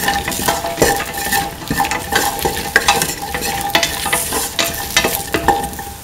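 Okra pieces and whole shallots sizzling in hot oil in a stainless steel pan, stirred with a spatula that scrapes and taps the metal again and again. This is the sauté that cooks the sticky mucilage out of the okra.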